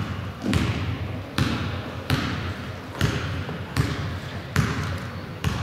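A basketball being dribbled on a hardwood gym floor, steady bounces a little more than one a second, each ringing out in the large hall.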